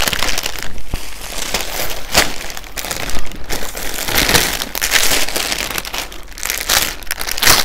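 Clear plastic clothing bag crinkling and rustling as it is handled and the clothes are pulled from it, a continuous run of irregular crinkles.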